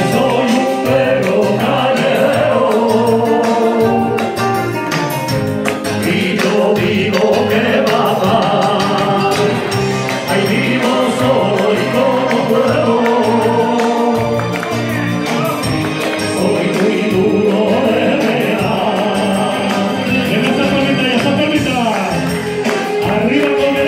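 A man singing a Spanish rumba over the accompanying music, with guests clapping along to the beat.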